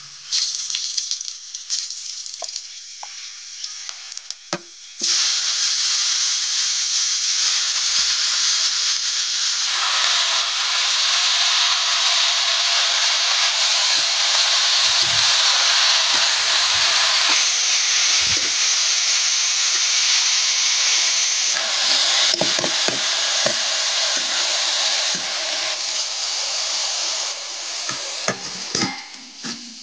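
Hot oil sizzling in a kadhai on a wood fire as spices fry; about five seconds in, the sizzle jumps to a loud, steady hiss as chopped spinach and potato go into the pan. Near the end the hiss eases and a few utensil knocks are heard as the pan is stirred and covered with a lid.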